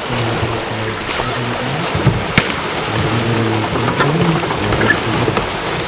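Kayak polo play on turbulent water: a steady rushing and splashing of churned water, with men's voices calling out and a couple of sharp knocks of paddles striking about two seconds in.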